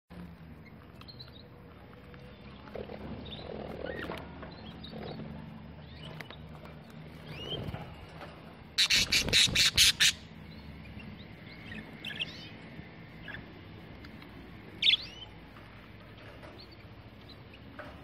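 Budgerigars chirping and squawking in short, scattered calls, one louder chirp about fifteen seconds in. About nine seconds in, a loud run of seven or eight quick strokes lasts about a second.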